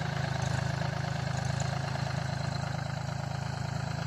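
Force OX25 compact tractor's diesel engine running steadily with a low, even throb as the tractor drives forward.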